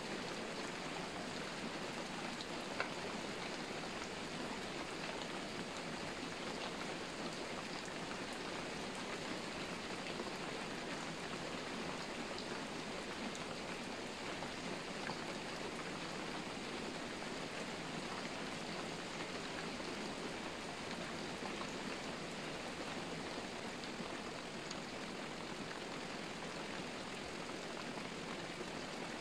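Steady rain falling, an even hiss throughout, with a couple of sharp ticks.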